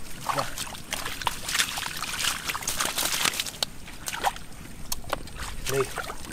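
Sloshing and small splashes in shallow muddy water as a person wades barefoot and feels through it by hand, with many little drips and clicks.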